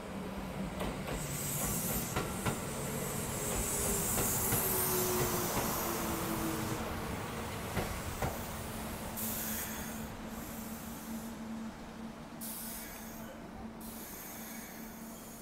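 Kintetsu 12200-series 'Snack Car' electric train slowing into a station: a high hiss and a motor whine that falls in pitch as it brakes, loudest as it passes close by, then easing off to a low hum as it comes to a stop.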